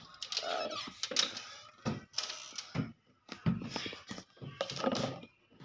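Irregular knocks, clicks and rustling as someone handles things close to the phone, reaching into an overhead cabinet.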